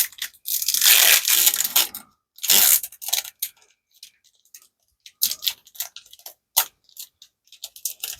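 Foil trading-card booster pack crinkling and tearing open, in two longer rustling bursts in the first three seconds, followed by scattered small clicks and ticks.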